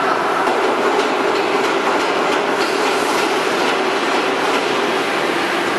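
Injection moulding machine and its in-mould-labelling robot running during bucket production: a loud, steady mechanical noise with light irregular clicks.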